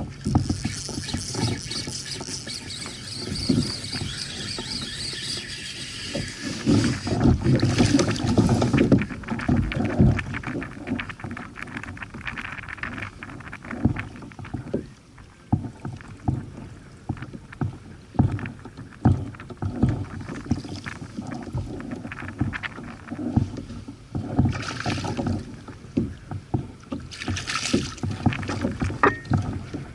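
Water slapping and lapping against a plastic sit-on-top kayak hull, with many small knocks and a few louder rushing bursts, the longest about seven to nine seconds in.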